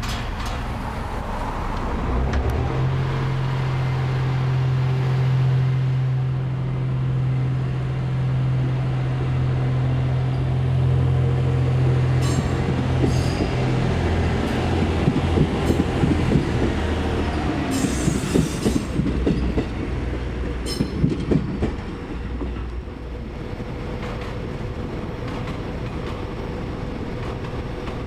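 JR East GV-E400 series diesel-electric train moving slowly during shunting. The diesel engine runs with a steady low drone, then the wheels clatter over rail joints and points for several seconds with a few short sharp squeals. It then settles into a quieter steady running hum.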